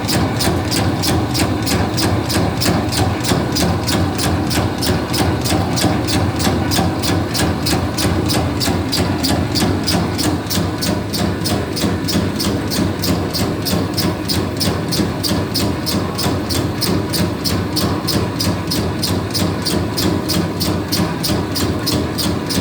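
Electric bakso (meatball) forming machine running, a steady motor drone with an even mechanical clicking at about four or five clicks a second.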